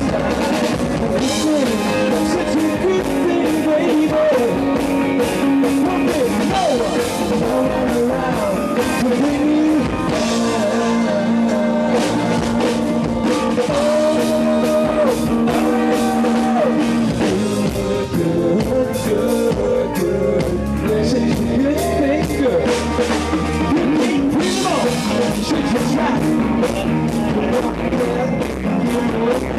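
Live rock band playing a song with lead vocals, electric guitar and drum kit.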